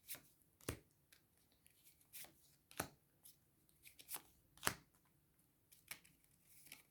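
Tarot cards being handled as a card is drawn: about ten faint, irregular flicks and taps of cards being shuffled and laid down.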